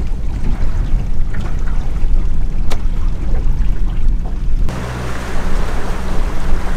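Motorboat engine running while the boat is underway, with heavy wind rumble on the microphone. About two-thirds of the way through, the sound changes abruptly to a steadier, more even engine hum.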